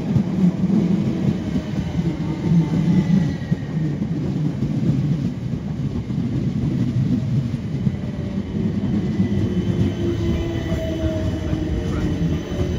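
A train running through the station: a steady low rumble with faint, thin whining tones above it.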